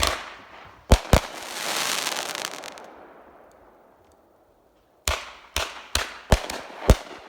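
Fireworks going off. A bang, then two sharp reports about a second in, followed by a crackling hiss that fades over a couple of seconds. From about five seconds in comes a quick string of about six reports, roughly three a second.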